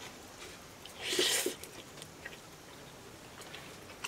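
A person eating noodles, with chewing sounds and one louder, noisy half-second sound about a second in.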